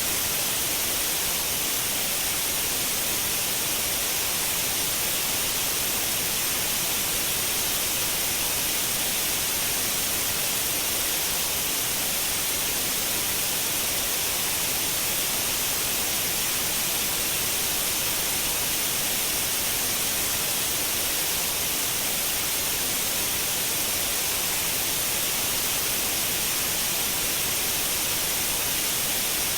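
Continuous white noise: a steady, even hiss, brightest in the upper range, with no change in level.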